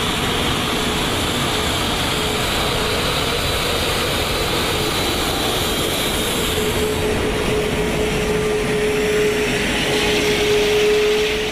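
Airbus A380 rolling out on the runway after landing: a steady rush of jet-engine and airflow noise with a steady hum that grows stronger in the second half.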